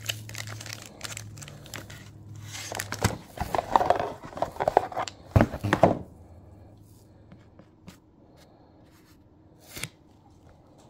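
A plastic wrapper crinkling and tearing as it is pulled open by hand. The crinkling is loudest for about three seconds midway, then only a few light handling clicks.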